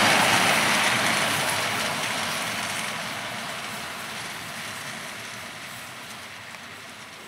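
Freight train of high-sided open wagons rolling away along the track, the wheel-and-rail noise fading steadily as the tail of the train recedes.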